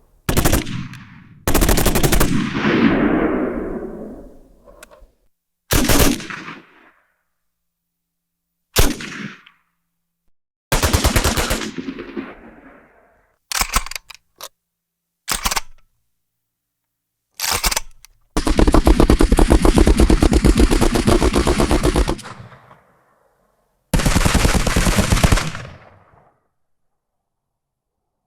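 Machine gun firing about ten bursts of automatic fire, some short and some several seconds long, each trailing off in a short echo before the next. The longest, steadiest burst is in the second half.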